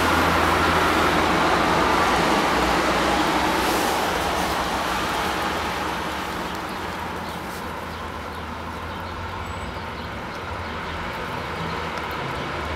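Steady rushing background noise that eases off between about four and eight seconds in.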